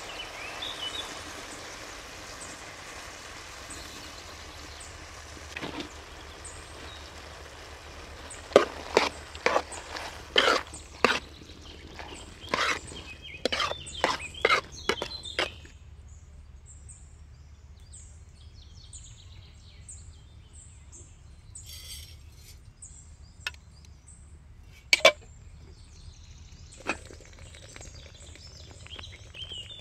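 Lamb organ meat sizzling in a wide metal pan, with a metal ladle scraping and knocking against the pan in a quick run of strokes from about eight to fifteen seconds in. The sizzling then cuts off, leaving birds chirping and two sharp knocks.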